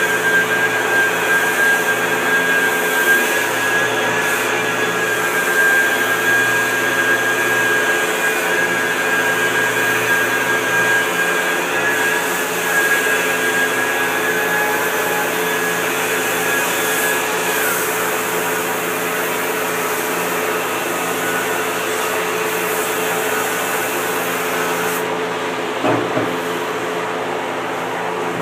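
Handheld electric rotary sander with a foam-backed sanding disc running steadily against a surfboard: a motor whine over a sanding hiss. The high whine dips and fades about two-thirds of the way through while the motor hum goes on, and there is a short knock near the end.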